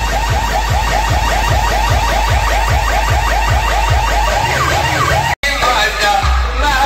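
DJ sound system playing an electronic track at high volume: a rapid, siren-like warble repeating several times a second over steady bass kicks. About five seconds in the sound cuts out for an instant and a different track comes in.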